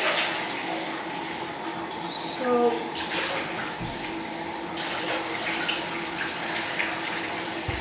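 Bathtub tap running steadily while a plastic measuring jug is filled under it and then poured into a bucket of water, the pour splashing from about three seconds in.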